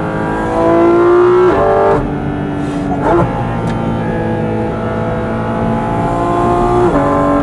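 Porsche 718 Cayman GT4 RS's naturally aspirated 4.0-litre flat-six pulling hard through the gears, its pitch climbing and then dropping at upshifts about one and a half, three and seven seconds in. The individual-throttle-body intake's suction is plain over the exhaust, heard from inside the cabin.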